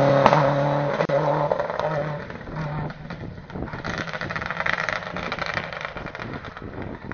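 Rally car engine at high revs with a strong steady note, then cutting in and out in several short bursts as the throttle is lifted. After that comes a rushing, crackling noise as the car goes on past.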